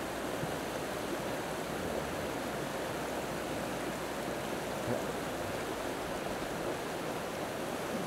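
Shallow mountain stream rushing steadily over rocks and through small rapids.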